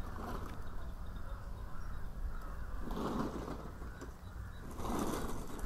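A crow cawing: two harsh caws about three and five seconds in and a fainter one at the start, over a steady low outdoor rumble.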